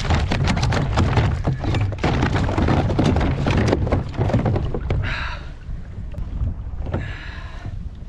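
A lingcod being hauled aboard a kayak, with quick knocks and thuds of the fish and gear against the hull over wind rumble on the microphone. The knocking stops about five seconds in, followed by two short hissing rustles.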